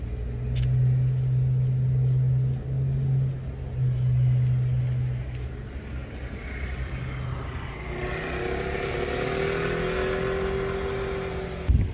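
Motor engine noise. A steady low hum runs for the first five seconds or so, then a louder engine tone rises slightly in pitch and holds until it cuts off near the end.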